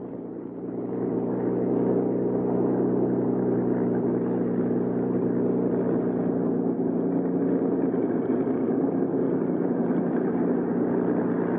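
Bell P-39 Airacobra's Allison V-12 engine running steadily as the fighter taxis, growing louder about a second in and then holding an even drone.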